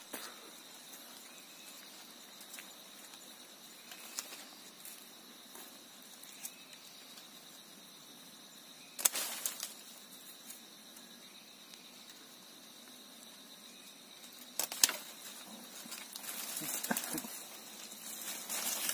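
A blade chopping the branches of an uprooted shrub, with two sharp strikes, one about 9 seconds in and one about 15 seconds in, and a few lighter knocks before them. Twigs and leaves rustle near the end. A steady high insect drone runs underneath.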